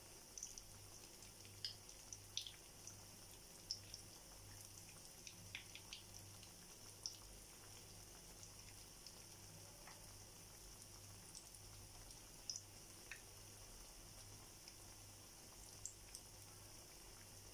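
Battered banana fritters deep-frying in rice bran oil: a faint steady sizzle broken by scattered sharp pops and crackles from the bubbling oil, with a low hum pulsing underneath.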